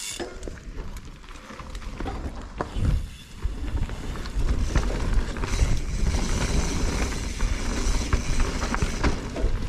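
Mountain bike riding down a dirt forest trail: tyres rolling over dirt and leaves, wind rumbling on the microphone, and the bike rattling with small knocks over bumps. It gets louder about four seconds in as the bike picks up speed.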